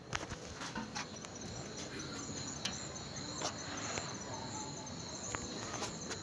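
Crickets chirping steadily in a continuous high trill, with a few short clicks scattered through it.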